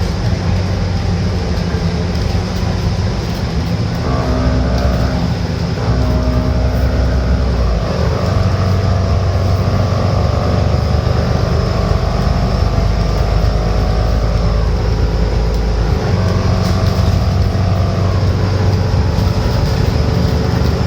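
Alexander Dennis Enviro500 MMC double-decker bus's Cummins diesel engine and automatic transmission running as the bus drives, with a steady drone and a whine above it. The pitch shifts twice, at about 8 and 16 seconds in.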